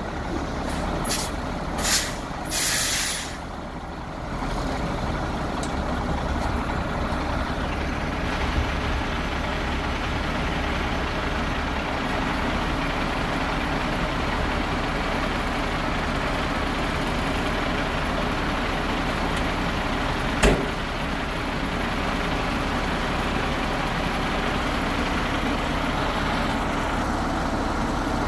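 International DT466E inline-six turbo diesel of a 1998 International 4900 truck idling steadily. A few short hisses of air from the air brake system come in the first few seconds, and there is one sharp knock about twenty seconds in.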